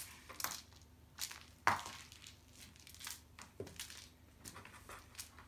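A cat moving and batting about inside a cardboard box: irregular short scrapes and crinkles against the cardboard, with one louder bump about a second and a half in.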